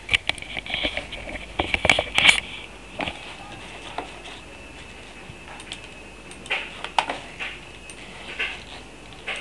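Kittens scuffling on a fabric sofa cover: rustling with sharp little clicks and soft knocks, busiest in the first couple of seconds, then only scattered light clicks and rustles.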